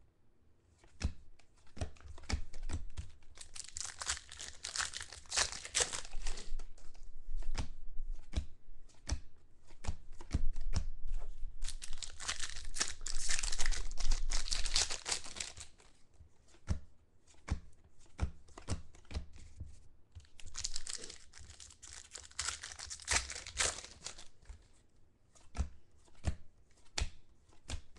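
Foil trading-card pack wrappers being torn open and crinkled, in three long stretches of a few seconds each, with many short clicks and snaps of cards being handled in between.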